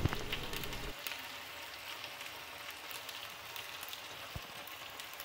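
Onions and ginger-garlic paste sizzling in hot oil in a wok: a faint, steady fry with fine crackles, with a short knock right at the start.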